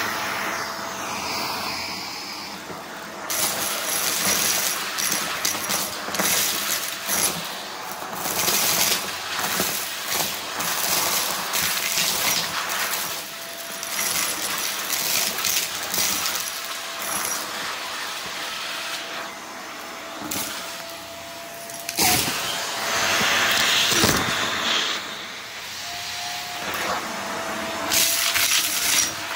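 Vacuum cleaner running with a steady motor whine, sucking up dry debris that rattles and clicks through it irregularly.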